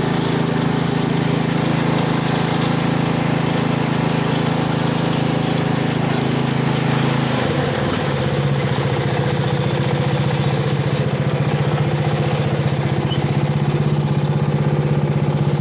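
Riding lawn mower engine running steadily, its note changing about halfway through.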